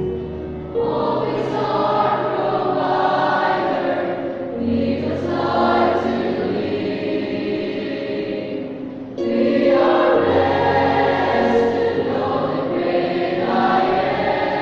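Mixed church choir singing together in parts, holding long notes, with new phrases starting with a jump in loudness about a second in and again about nine seconds in.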